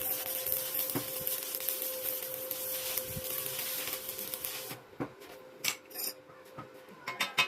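Electric arc welding crackling and hissing steadily over a steady hum, cutting off about two-thirds of the way through. A few sharp metallic clinks follow.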